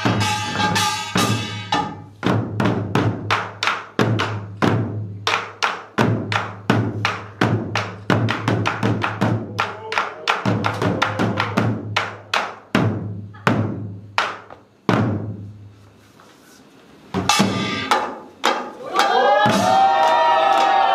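Korean pungmul drumming: janggu hourglass drums and buk barrel drums struck in a fast, dense rhythm. The strokes thin out and stop for about a second near the end, then the ensemble comes back in, with a sustained, wavering ringing tone over the drums at the very end.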